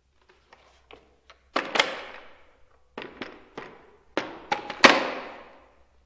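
Ruger 10/22 rifle being reloaded dry: a run of metallic clicks and clacks from the action and magazine, played back at half speed. The two loudest clacks come about a second and a half in and a little before the end, each ringing on in the hard-tiled bathroom.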